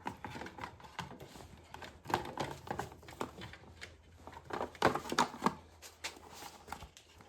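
Parts of a car seat's anti-whiplash headrest mechanism being handled and fitted together: irregular clicks, taps and rattles, in two busier clusters about two and five seconds in.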